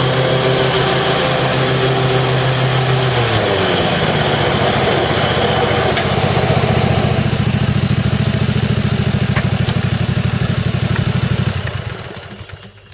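Exmark Viking walk-behind mower's 15 horsepower Kawasaki engine running steadily. About three and a half seconds in, its speed drops to a slower, pulsing idle. Near the end it is shut off and dies away.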